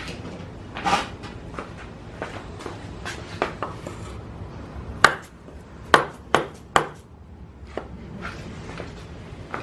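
Metal tools clinking as something to strike with is picked up, then four sharp metal-on-metal hammer blows, about half a second to a second apart, knocking a power steering bracket into alignment on the engine.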